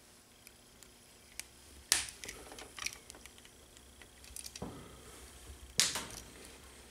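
Plastic ball links clicking and snapping onto the ball ends of an Align T-REX 550X helicopter's rotor head, with light handling clicks. A few sharp clicks, the loudest about two seconds in and near the end.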